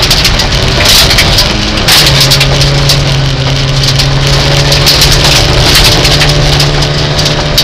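Rally car's engine running loud under way, heard from inside the cabin, with loose gravel crackling and rattling against the underbody and wheel arches. The engine note drops in pitch about two seconds in, then holds steady.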